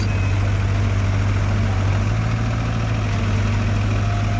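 Heavy diesel engine of the loading machinery running steadily as a low, even hum, picking up slightly about halfway through.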